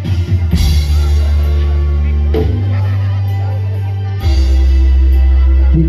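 Loud music accompanying the trance dance, with sustained deep bass notes that shift in pitch about every two seconds and get louder a little past the four-second mark.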